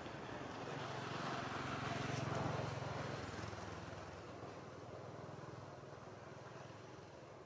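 A motor vehicle going past, its engine noise swelling to the loudest point about two seconds in and then fading away.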